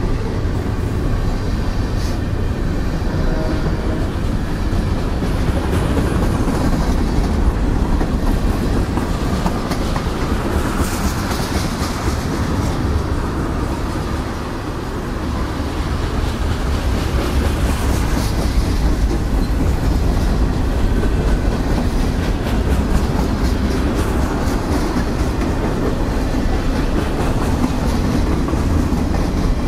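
Freight cars of a CSX mixed freight train (covered hoppers, tank cars, boxcars) rolling past close by: a steady, loud steel-wheel rumble on the rails with repeated clicking of wheels over the track.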